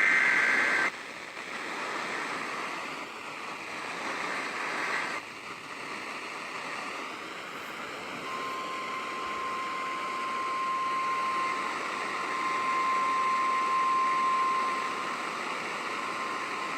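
Weather-radio reception static hissing throughout. It opens with a harsh two-tone burst of EAS/SAME digital data, about a second long. Around halfway a steady single-pitch NOAA Weather Radio warning alarm tone comes in over the static and holds for about seven seconds, the signal that a warning message follows.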